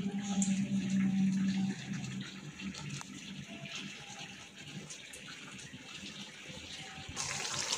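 Chicken pieces sizzling in hot oil in a karahi, a steady hiss that turns suddenly louder and brighter near the end. A steady low hum sounds under it for the first couple of seconds.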